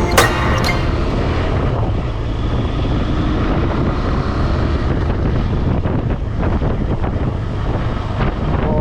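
KTM Adventure motorcycle engine running steadily while riding, a low continuous drone with wind noise on the microphone.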